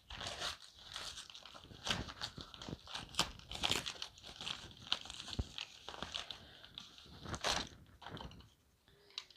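A small retail package being torn open and handled: crinkling and tearing of the wrapping with many irregular crackles, for about eight seconds.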